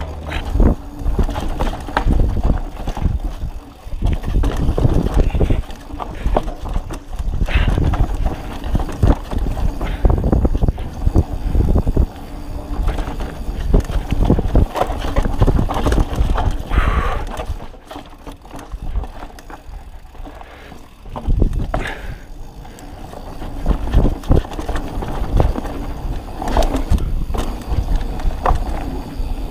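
2021 Polygon Siskiu T7 full-suspension 29er mountain bike descending a rocky dirt trail: tyres rolling and crunching over dirt and rock, with frequent clattering knocks from the bike as it hits bumps, over a low wind rumble on the microphone. It goes quieter for a few seconds a little past the middle.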